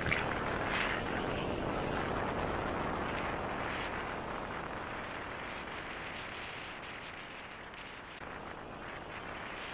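Onboard sound of a 1974 Triumph Trophy 500 motorcycle under way: its parallel-twin engine running beneath a steady rush of wind, loudest in the first two seconds and easing off a little after.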